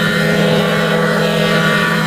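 Steady electronic buzzing drone from a vocoder effect, holding one low pitch with many steady overtones and no change in pitch or level.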